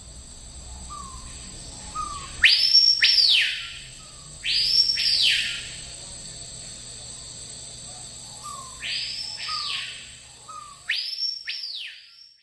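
Repeated whistled animal calls, bird-like: each is a short faint lead-in note followed by a loud whistle that rises steeply and slides back down, four calls in all, the first two close together and the last two after a pause.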